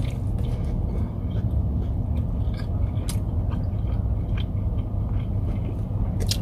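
A person chewing a bite of cheeseburger close to the microphone, with scattered short wet mouth clicks, over a steady low rumble.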